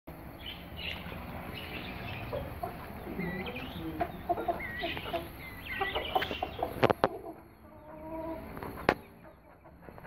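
A mixed flock of Aseel chickens and helmeted guineafowl clucking and calling in a stream of short, pitched notes. A few sharp knocks come in the second half, and the calling thins out toward the end.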